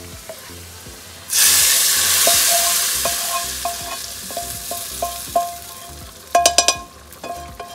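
Hot tempering oil with fried garlic, onion, cumin and paprika (a baghaar) poured into a pan of simmering dal: a sudden loud sizzling hiss about a second in that slowly dies away. Near the end, a quick cluster of knocks from the pans and utensils.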